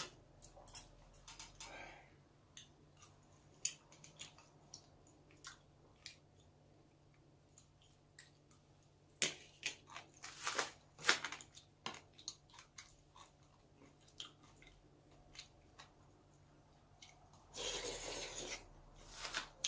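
Close-miked chewing of food, with many small scattered clicks and mouth noises. There is a louder cluster about halfway through and a longer noisy stretch near the end.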